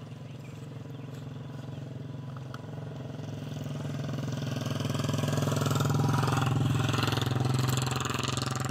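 A motor vehicle engine running steadily, growing louder to a peak about six seconds in and easing slightly toward the end.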